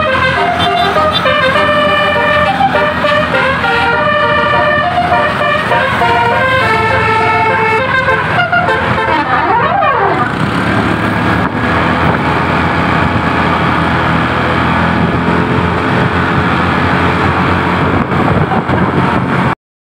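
Bus basuri horn, a multi-tone melodic air horn, playing a tune of stepped notes, with a siren-like glide in pitch about halfway through; after that the sound turns denser and steadier. The sound cuts out for a moment near the end.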